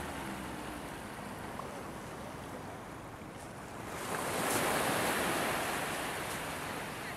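Sea surf washing on the shore, mixed with wind on the microphone, as an even rushing that swells louder about four seconds in.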